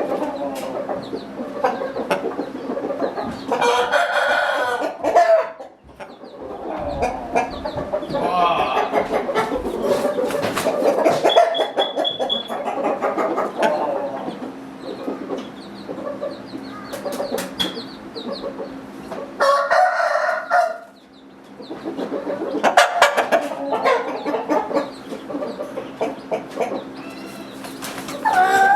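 Roosters crowing twice, each crow lasting about a second and a half, over continuous clucking and calling from other chickens in the coop, with a steady low hum underneath.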